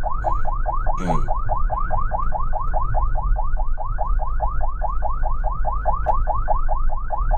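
Ambulance siren sounding in a fast yelp, rapid rising whoops about five a second, over the low rumble of the moving vehicle. A brief knock is heard about a second in.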